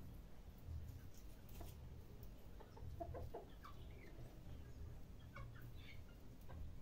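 Faint clucking of chickens: a few short calls about three seconds in and again near the end, over a low steady rumble.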